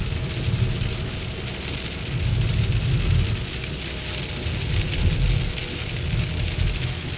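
Heavy rain on a moving car's roof and windshield, heard from inside the car, over a low rumble that swells and fades a few times.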